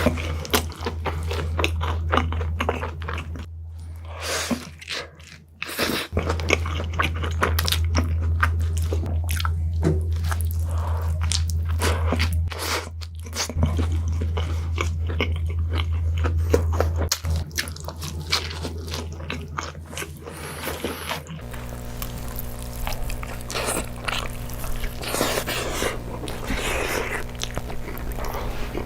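Close-miked mouth sounds of someone biting into and chewing a large burger, with crunching and wet chewing, over a steady low hum.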